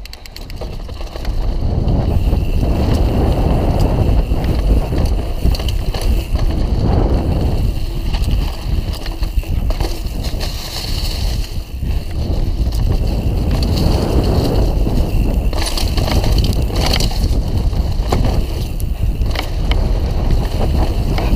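Mondraker Dune RR mountain bike riding fast downhill on a dirt trail: wind rushing over the camera microphone and tyres rumbling on the dirt, with scattered knocks and rattles from the bike over bumps.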